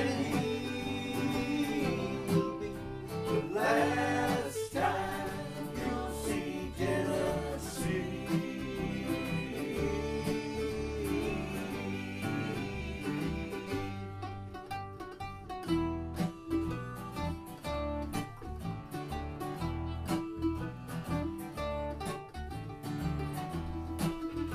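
Acoustic bluegrass band playing live: fiddle, mandolin and guitars picking a country-style tune, with singing over roughly the first half, then carrying on as instruments only.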